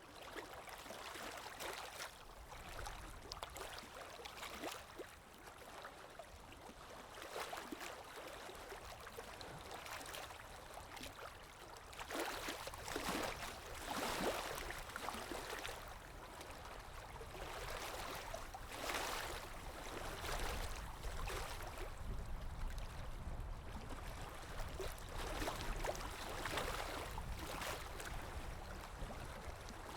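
Calm sea waves washing in, a steady hiss of water that swells and recedes every few seconds, with the biggest surges in the middle of the stretch.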